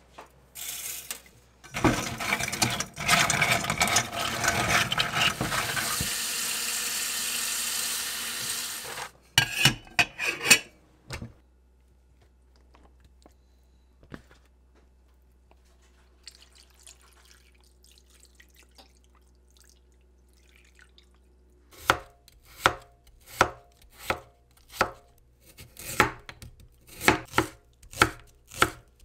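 Tap water running into a pot of clams in a stainless sink for several seconds, followed by a few clinks and knocks. Later comes a chef's knife chopping green onion on a wooden cutting board in steady, evenly spaced strokes.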